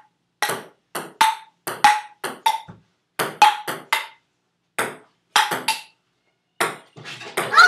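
Table tennis rally: the celluloid ball clicking off rubber paddles and bouncing on the table, a quick run of sharp knocks with brief pauses between exchanges. Near the end a child's voice starts up.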